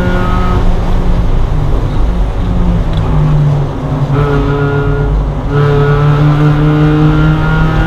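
Inside the cabin of a Spec Miata race car: its four-cylinder engine running hard under load, with road and wind noise. The engine eases off briefly about four seconds in and comes back on power about a second and a half later.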